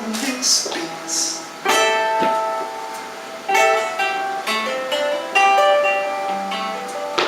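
Guitar playing an instrumental passage: a strummed chord about every two seconds, its notes ringing on between strums.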